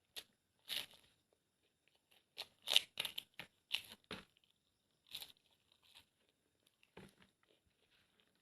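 Close-miked eating sounds: a string of short, irregular crackles, tears and crunches as a person bites into and handles food, with quiet gaps between them.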